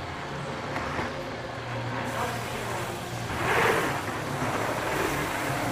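Mountain bike riding along the track: tyre and rolling noise over a steady low hum, with a louder rush of noise about three and a half seconds in.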